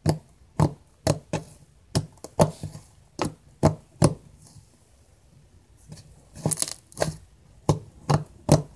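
Kinetic-sand butter slime squeezed and poked by hand for ASMR, giving sharp clicks and pops at irregular intervals. They come about two a second, stop for about two seconds midway, then come quicker near the end.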